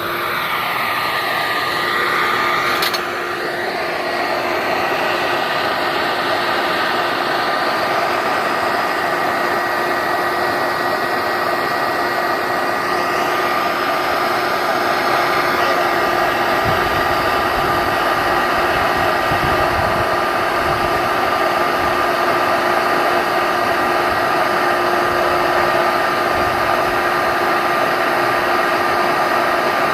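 Electric vacuum switched on and running steadily with a constant motor whine.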